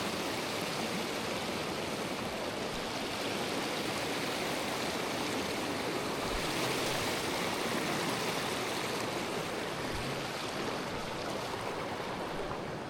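Stream water rushing in a steady, full, even rush that swells slightly midway; the stream is swollen with winter snowmelt.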